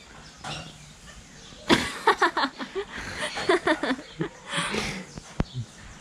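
Parrots calling in an aviary: a run of short, chattering calls starting a little under two seconds in, with a single sharp click near the end.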